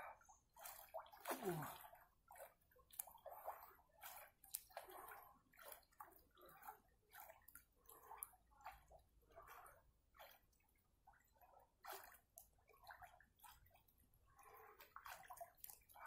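Faint water splashing and sloshing in an above-ground frame pool as a person swims, soft irregular splashes about every second with each stroke. A short falling tone sounds about a second and a half in.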